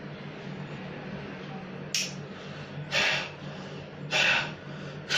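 Short, sharp puffs of breath blown out through a face mask toward a lighter flame, about one a second starting some two seconds in, over a steady low hum.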